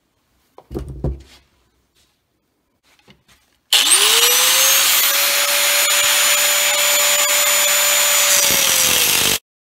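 A handheld grinder spins up with a quickly rising whine about four seconds in and then runs at a steady pitch, cutting into the copper windings of a small generator stator. It cuts off abruptly just before the end. Before it there are a few short knocks of handling.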